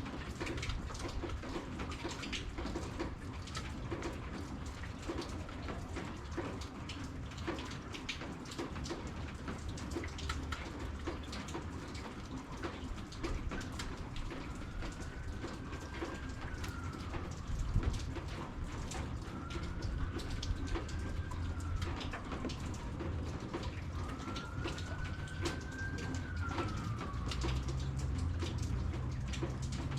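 Steady rain falling, with many separate drops pattering and dripping. Three long calls that rise and then fall come a few seconds apart in the middle, and a low rumble grows near the end.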